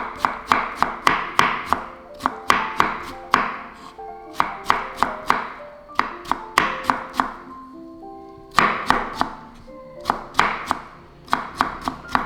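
Knife chopping on a cutting board in quick runs of sharp knocks, several a second with short pauses between runs, over soft background music.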